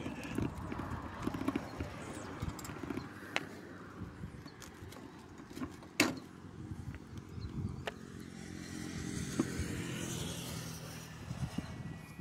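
Riding noise from a bicycle on asphalt, picked up by a handlebar-mounted camera: a low, uneven rumble with small rattles and clicks. A sharp knock about six seconds in. A swell of noise near the end.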